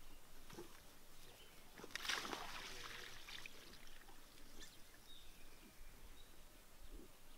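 Faint outdoor pasture ambience with scattered short bird chirps and a brief burst of rustling noise about two seconds in.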